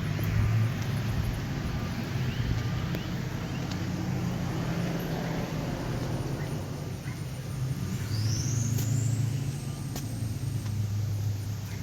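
Motor vehicle engine running, a low steady hum that grows louder about eight seconds in, with a short high rising chirp at the same moment.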